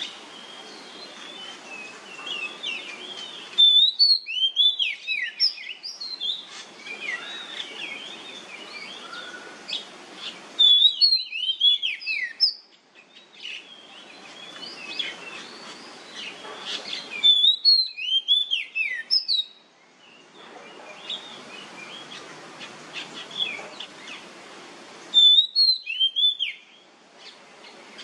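Oriental magpie-robin singing its loud 'nyemplong' song: a burst of rising and falling clear whistles comes about every seven seconds, four times, with softer, varied twittering over steady background noise between the bursts.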